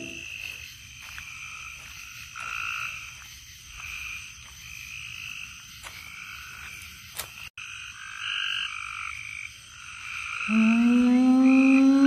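A chorus of frogs calling at night, with short calls repeating every second or two and overlapping. About ten and a half seconds in, a loud, steady low tone with overtones starts, rises slightly in pitch and becomes the loudest sound.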